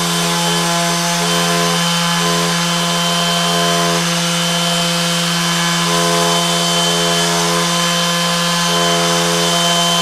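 Makita cordless random orbital (DA) sander running steadily with a steady hum, a 1200-grit wet-and-dry pad wet-sanding a stainless steel lock pick held down on a granite slab.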